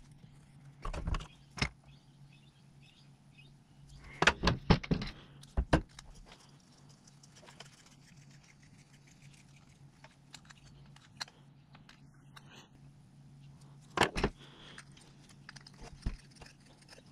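Metal workshop handling: multi-grip pliers and a twisted-wire hook hanger clinking and clattering against a wooden lure body and the bench as the hanger is screwed in. It comes in a few short bursts of clicks and knocks, the busiest about four to six seconds in and again about fourteen seconds in, over a steady low hum.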